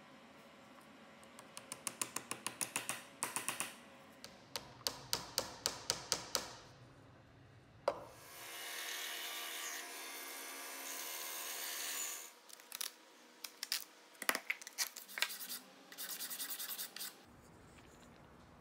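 Small brass tool parts being rubbed back and forth on abrasive by hand. The strokes come in runs at about four a second, with a sharp click and a few seconds of steady scraping in the middle.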